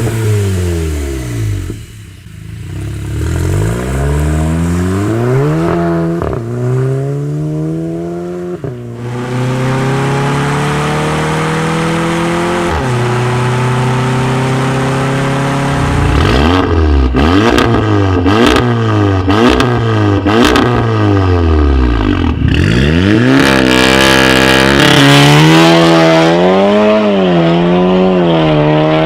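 Volkswagen Golf GTI's turbocharged direct-injection four-cylinder engine revving and accelerating through its dual-clutch gearbox. The pitch climbs and then drops sharply at each gear change, with a run of sharp exhaust pops and crackles around the middle.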